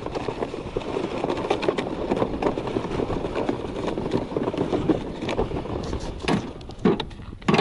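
Plastic fishing sled dragged over crusty snow on ice: a steady crunching scrape, with the puller's footsteps crunching in the snow. A few separate knocks near the end.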